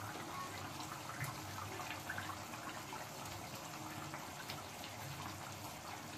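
Curry gravy simmering in a pan, a faint steady bubbling with scattered small pops.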